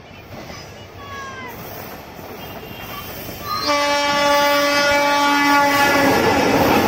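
A Bangladesh Railway diesel-electric locomotive hauling a passenger train approaches and grows louder. A little over three seconds in, it sounds its horn in one steady two-second blast. Then comes the loud noise of the engine and wheels as it passes close.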